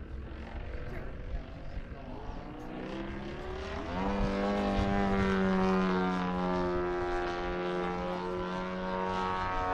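Radio-control model airplane's motor and propeller running at a steady pitch. It rises in pitch and gets louder about four seconds in, then holds.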